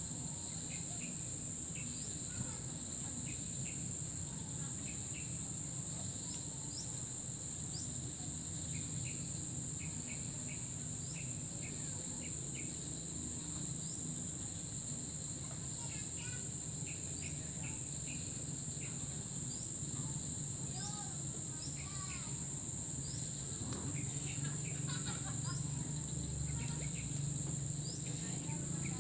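Insects droning steadily at one high pitch, with short bird chirps and whistles scattered through and a low steady hum underneath.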